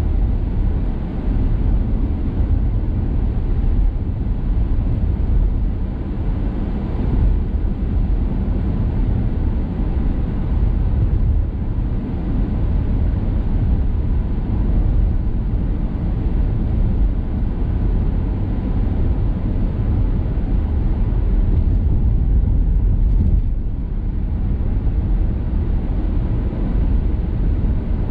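Steady low rumble of a car driving along a highway, heard from inside the cabin as tyre, road and engine noise.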